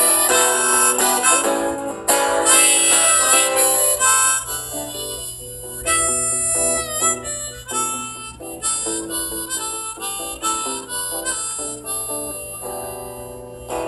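Harmonica played in a neck rack, a melody with some bent notes, over a strummed acoustic guitar: an instrumental break between sung verses.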